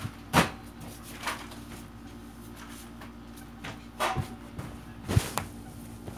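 Several separate sharp knocks and clatters of objects being handled on a hard surface, the first one the loudest, over a steady low hum.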